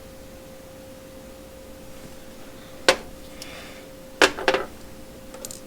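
A few sharp clicks of metal bolts being handled and set down, one about three seconds in and two close together a little over a second later, over a faint steady high hum.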